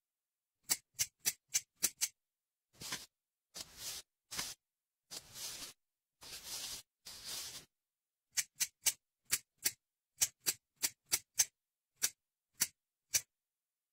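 Dubbed ASMR makeover sound effects: five sharp clicks, then six short hissing strokes as a hair straightener is drawn down the hair, then a quick run of about fourteen short crisp scrapes as an eyebrow razor shaves the brows.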